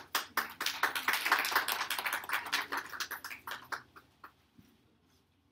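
A small group of people clapping, loudest about a second or two in and dying away after about four seconds.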